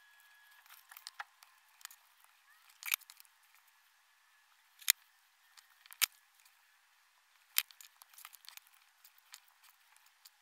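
LEGO plastic bricks being handled and pressed onto a build: a scattering of sharp clicks at irregular intervals, the loudest about five, six and seven and a half seconds in.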